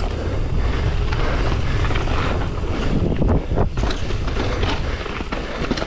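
Wind buffeting the microphone of a mountain bike's handlebar camera on a fast descent, with tyres rolling over dirt and loose gravel and scattered clatters as the bike hits bumps.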